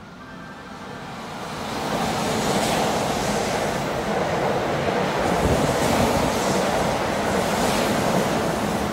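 Keihan 3000 series electric train running close past on the platform track: the noise swells over the first two seconds as it draws near, then holds as a steady rushing rumble, with a few sharp wheel clacks.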